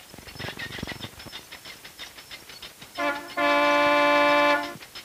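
Cartoon sound effects: a quick run of clicks, then about three seconds in a loud two-tone car horn blares steadily for over a second before cutting off.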